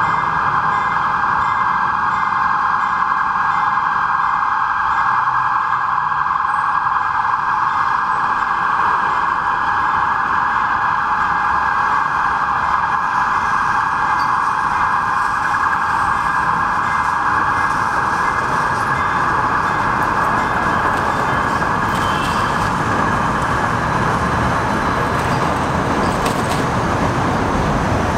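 Loud, steady vehicle noise: an even, unchanging hiss-like drone that holds without a break, with no distinct horn, squeal or impact.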